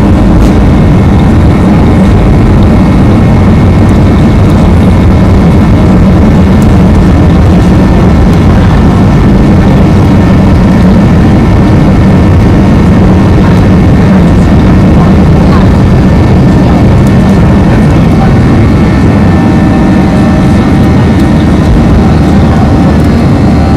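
Boeing 737-700's CFM56-7B turbofan engines at takeoff power, heard inside the cabin as a loud, steady low roar with a faint high whine.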